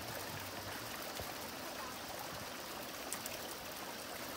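Steady rushing of running water, with a couple of faint clicks about three seconds in.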